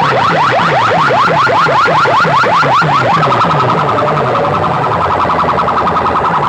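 Siren-like alarm effect in a DJ dance track: fast rising whoops, about six a second, then after about three seconds a rapidly warbling steady tone, over a repeating bass beat.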